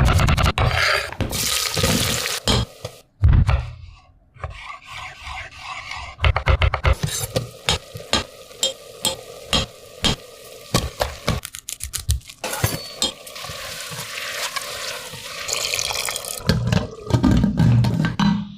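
Kitchen cooking sounds: water running and splashing, with many short clinks and knocks of utensils against a pot.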